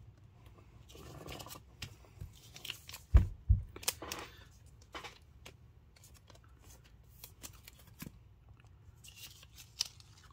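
Trading cards being handled and laid down on a table: rustling, sliding and light taps of card stock, with two thumps about three seconds in.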